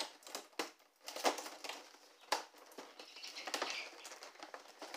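Clear plastic blister tray crinkling and crackling as it is handled and flexed, with several sharp snaps and clicks in the first half.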